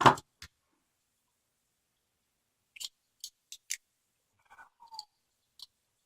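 A single knock at the start, then a handful of small sharp clicks and light rattles as the Master Pro Series 6840 padlock is taken apart by hand to get its core out.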